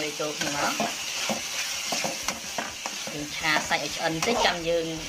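Diced pork, garlic and chilies sizzling in hot oil in a metal wok while a metal spatula stirs them, scraping and knocking against the pan in repeated strokes.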